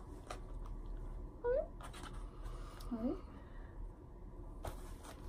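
Quiet room tone with a few faint clicks and rustles, and two short wordless vocal sounds, each a quick sliding 'mm', about a second and a half in and again about three seconds in.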